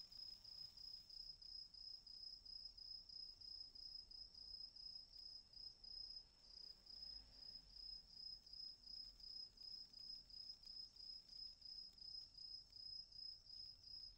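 A cricket chirping: a faint, high, even trill that pulses about three times a second.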